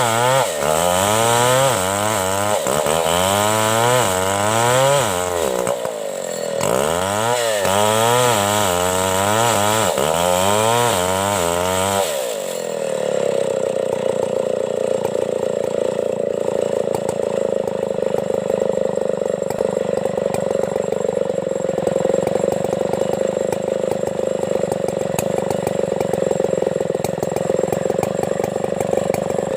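A Stihl petrol chainsaw is revved up and down over and over, about once a second. About twelve seconds in it settles to a steady high speed.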